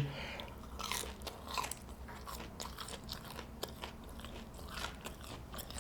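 Close-miked eating: biting and chewing fast food, with many small crunchy clicks scattered irregularly throughout.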